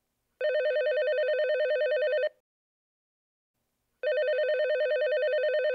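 Telephone ringing on a call being placed: two long trilling rings, each about two seconds, with a pause between them.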